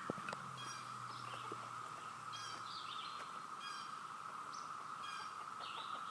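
Cicada chorus: a steady, even drone that never breaks, with short bird chirps scattered over it.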